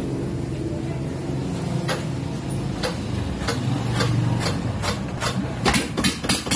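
Yanmar NS130 single-cylinder diesel engine running, with sharp cracks breaking in that come closer together near the end.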